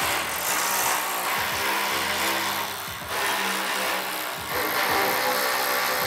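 Background music, with a cordless power driver running beneath it as bolts are driven into a steel storage rack.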